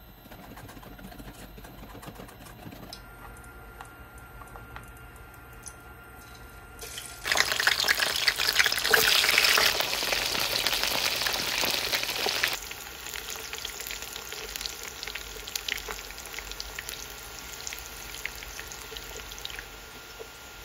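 Battered sweet potato sticks deep-frying in hot oil in a pan. A loud, dense sizzle and crackle starts suddenly about a third of the way in, then drops to a softer sizzle with scattered pops for the rest. Before that there is only the quiet sound of a whisk stirring batter in a steel bowl.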